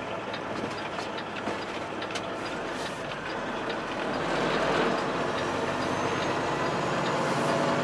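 Semi-truck cab noise while driving: the engine running and road noise, with scattered clicks and rattles. It gets louder about four seconds in.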